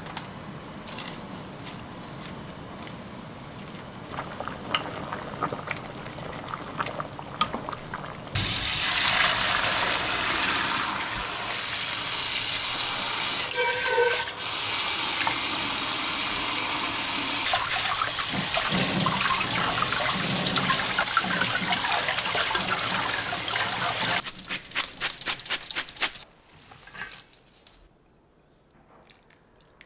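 Kitchen tap running hard into a stainless steel pot in the sink, coming on suddenly about eight seconds in and shutting off suddenly about sixteen seconds later. Before it, a quieter hiss with scattered clicks; after it, a quick run of clatters, then near quiet.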